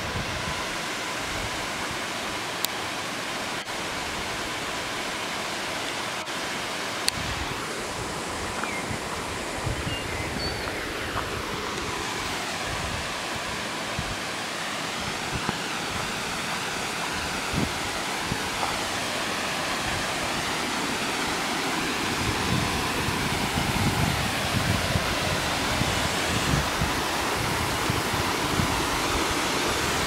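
Small waterfall cascading down rocky steps, a steady rush of water that grows louder over the last several seconds.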